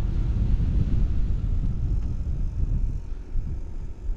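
Riding a Yamaha NMAX scooter at speed: a heavy wind rumble on the microphone with the scooter's engine running underneath, easing slightly past the middle.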